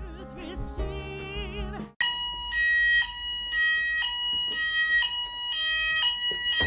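A song with singing plays for about two seconds, then a building fire alarm sounds: two electronic tones switching back and forth about every half second. It is a false alarm, with no fire behind it.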